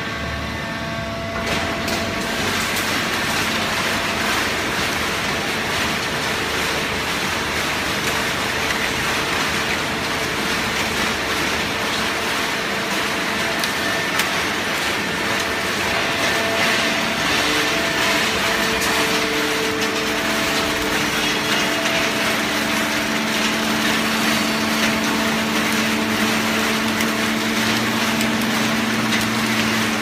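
Fully automatic horizontal hydraulic waste-paper baler running: steady machine noise with a constant hum from its hydraulic power unit. It gets a little louder about a second and a half in, and a deeper hum comes in about two-thirds of the way through.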